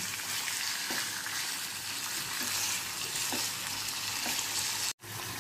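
Chicken pieces frying in hot oil in a nonstick kadai: a steady sizzle, with a few soft taps and scrapes of a slotted spatula as the pieces are turned. The sound drops out for an instant near the end.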